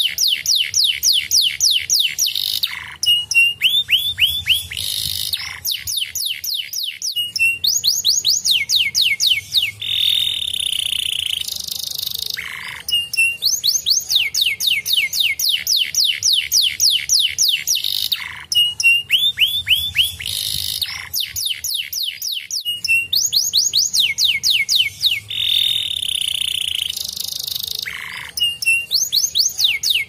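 Domestic canary singing a continuous song: fast rolls of quick down-slurred notes, broken by short squeaky notes and a few brief held buzzy tones, with the same run of phrases coming round again about every fifteen seconds.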